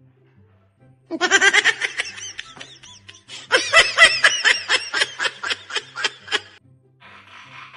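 High-pitched snickering laughter in two loud runs, the second a quick ha-ha-ha pulse, over quiet background music. A short hiss comes near the end.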